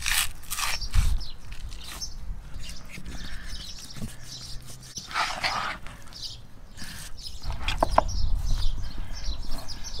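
Knife cutting through raw beef on a wooden cutting board: irregular short wet slicing and tearing strokes as the meat is worked off the ribs, with two sharp knocks about eight seconds in.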